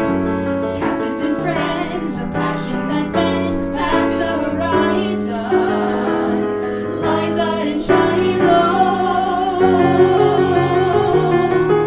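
A woman singing a musical-theatre song with piano accompaniment, her longer held notes wavering with vibrato in the second half.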